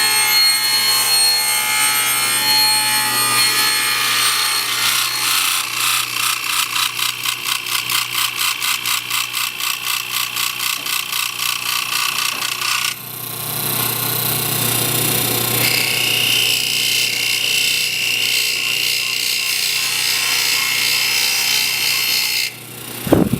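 Wood being cut on a lathe: a turning tool scraping the spinning workpiece over the steady hum of the motor. About a third of the way in the cutting pulses about three times a second, then changes abruptly to a steadier hiss. A short knock comes near the end.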